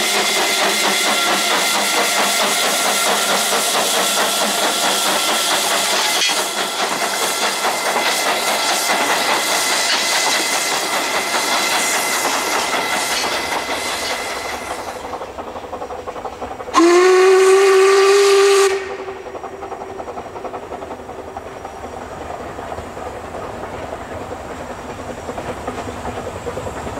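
A steam locomotive working, with a loud hiss of steam for the first half, then one long blast of its steam whistle about two-thirds of the way in, sliding up in pitch as it sounds and lasting about two seconds. The train then runs on more quietly, with wheels clacking over the rail joints.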